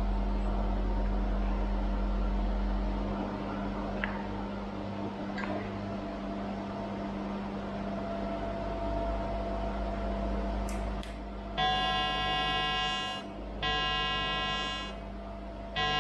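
Welding setup humming steadily, then a TIG arc on stainless steel struck about twelve seconds in, buzzing with a high, evenly pitched whine in three bursts of a second or so each as the torch is switched on and off.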